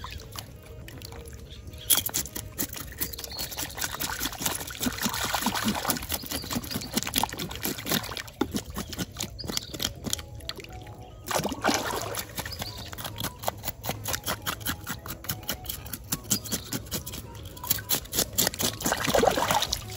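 Pond water splashing and trickling around hands as a freshly caught tilapia is cut and rinsed in it: irregular small splashes, with louder sloshes about five, eleven and nineteen seconds in.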